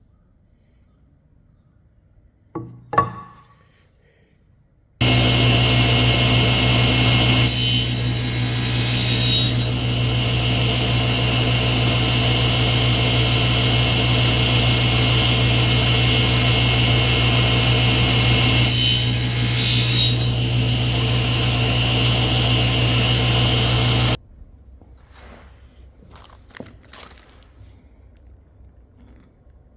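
A woodworking power tool running steadily, cutting into wood twice: once about a quarter of the way in and again a little past the middle. A short knock comes before it starts, and the motor sound begins and cuts off suddenly.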